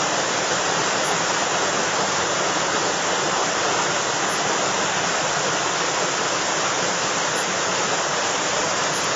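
Whitewater rushing steadily at the foot of a waterfall: a loud, even roar of churning river water.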